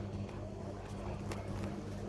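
Beko washing machine running with a steady low hum, and a single light click just over a second in.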